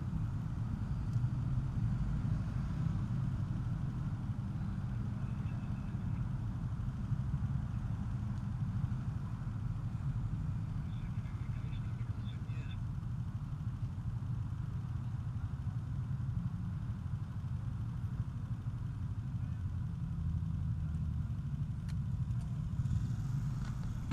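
Steady low rumble of wind and road noise picked up by a helmet-mounted action camera on a moving bicycle.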